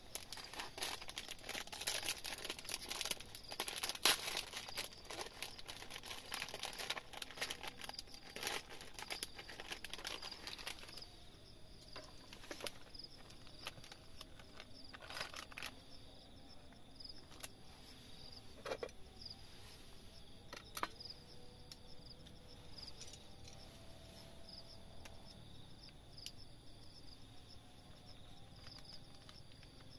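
Plastic food packaging crinkling and crackling as it is handled and unwrapped, dense for the first ten seconds or so, then dying down to a few scattered clicks. Insects chirp steadily in the background with a high, pulsing note.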